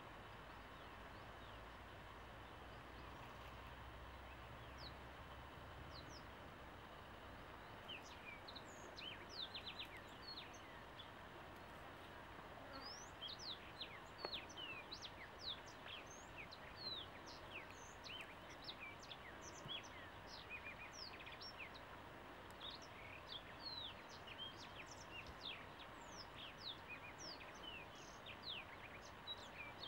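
Many birds chirping in short, quick sweeping notes that come thick and fast from about eight seconds in, over a faint, steady hum of bees.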